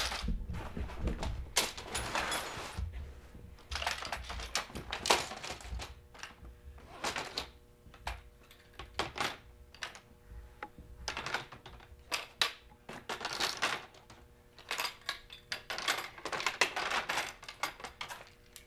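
Folding-kayak frame parts (ribs, bow and stern pieces, foot brace, rudder assembly) being packed into a storage bag: irregular clicks and knocks of parts against each other, mixed with bursts of bag fabric rustling.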